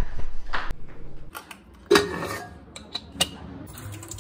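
Footsteps on stone stairs, then kitchen clatter: a sharp clank of steel cookware with a brief ring about two seconds in, followed by a few lighter clicks.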